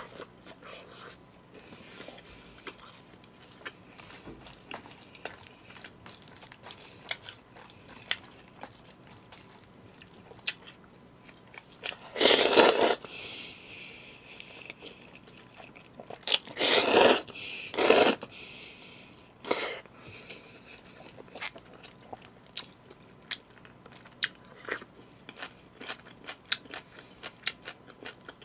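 Close-miked eating: steady chewing and mouth smacking, with three loud slurps of jajangmyeon (black-bean-sauce noodles) in the middle.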